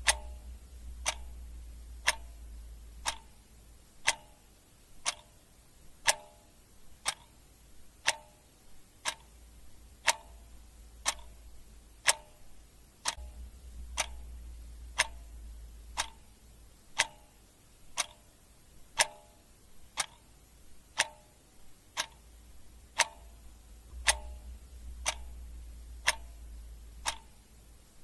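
Mechanical clock ticking steadily, one tick a second, alternating tick and tock, some ticks with a short ring to them. A faint low rumble comes and goes underneath.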